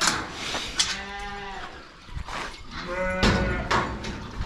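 Sheep bleating: two long, drawn-out calls, with a few sharp knocks among them.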